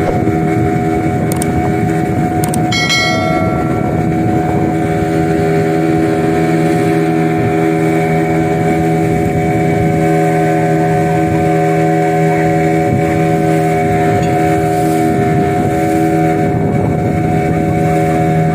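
Boat engine running at a steady speed, a constant drone. About three seconds in there is a brief ringing tone.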